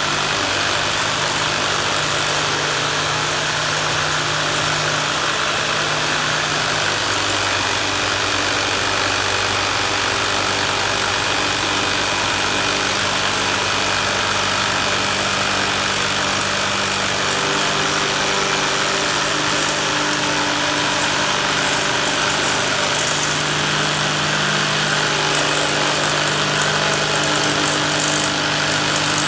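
Power saw cutting a Lexan polycarbonate sheet, running steadily with a hum whose pitch shifts a few times over a loud hiss.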